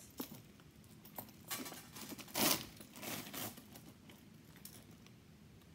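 Rustling and crinkling as a new handbag's chain strap, tag and wrapping are handled, in several short bursts, the loudest about two and a half seconds in, then quieter.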